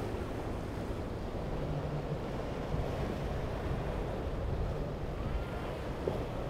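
Surf breaking and wind buffeting the microphone, with the low steady drone of a boat's engines running underneath.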